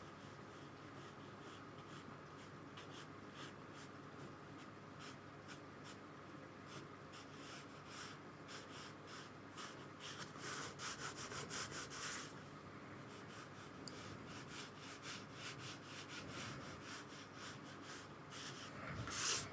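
Paintbrush scrubbing and dabbing on watercolour paper in quick, short strokes, a faint rapid scratching that grows busier about halfway through. Near the end there is a short, louder sound.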